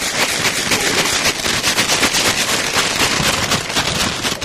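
A paper bag of French fries and red pepper seasoning being shaken hard (McDonald's Japan Shaka Shaka fries): a loud, fast, continuous paper rattle, noisy.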